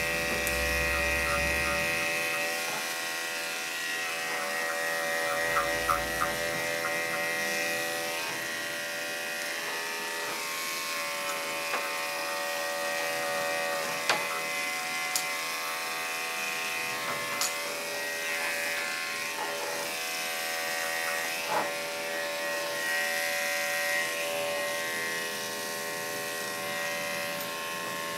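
Electric dog grooming clipper running with a steady motor hum as it trims a Scottish terrier's coat. Low background bass comes through briefly in the first couple of seconds and again about six seconds in.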